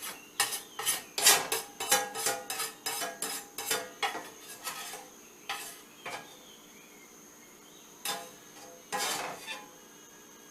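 Metal kitchen utensil clattering and scraping against cookware: a quick run of knocks and clinks for about five seconds, then a few scattered ones.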